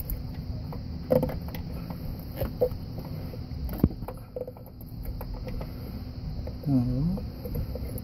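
Scattered light clicks and knocks of hands handling a rubber coolant hose and its clamp at an auxiliary electric water pump, over a steady low background hum. A short hum from a voice about seven seconds in.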